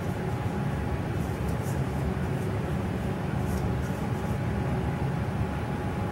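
A steady low hum and rumble of background machine noise, with a few faint brush scratches on sheet metal about a second in and again about three and a half seconds in.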